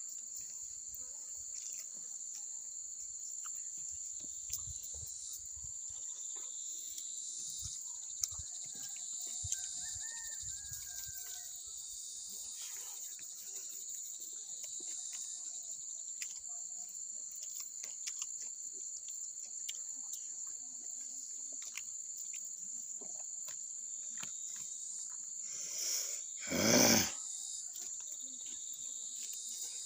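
Steady high-pitched insect chorus, with soft clicks and smacks of hand-eating and chewing close to the mic. Near the end a single loud noise lasts about a second.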